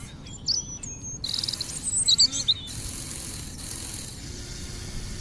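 Small birds chirping and trilling in quick high notes, loudest about two seconds in. From about two and a half seconds a steady hiss takes over, with a faint hum underneath near the end.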